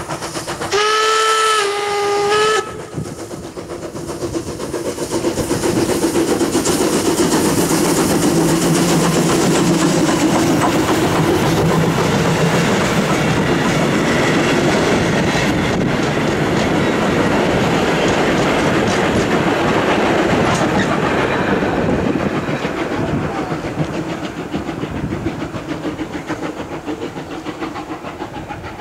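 Steam whistle of the SJ S1 1916 steam locomotive blows once near the start, about two seconds long, stepping slightly down in pitch halfway through. Then the train passes close by: the rumble of the locomotive and coaches on the rails builds, stays loud for some fifteen seconds and fades near the end.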